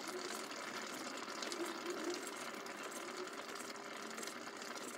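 Kitchen knife slicing a sausage on a wooden cutting board: faint, soft repeated cuts over a steady low hiss.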